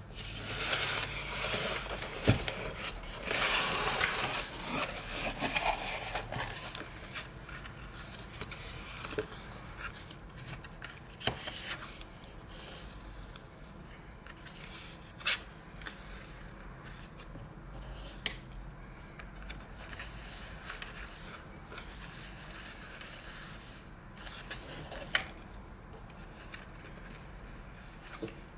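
Loud rustling and scraping of a taped paper mailer being opened by hand for the first several seconds. Then quieter handling of cardboard postcards, sliding and shuffling with a few light taps.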